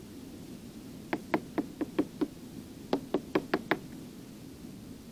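Small hammer tapping the wooden bottom planking of a boat's transom to sound it out: two quick runs of light knocks, six and then five, about four or five a second. The planking sounds hollow, which the owner takes for bad vertical checking or softness on the other side.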